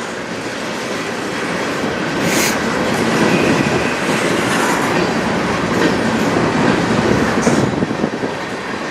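Freight cars of a long, slow manifest train rolling past on the rails: a steady loud rolling noise with a sharp click about two and a half seconds in.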